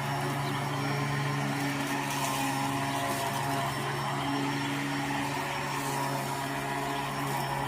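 Litheli battery-powered electric lawn mower running steadily, its motor and blade giving a constant-pitched hum over a rushing noise.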